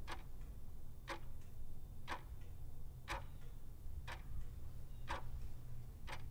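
Clock ticking once a second, each sharp tick followed by a fainter one, over a low steady rumble.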